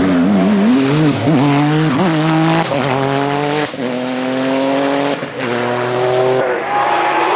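Porsche 911 race car's flat-six engine accelerating hard out of a hairpin, its pitch climbing steeply and dropping back at each of several quick upshifts.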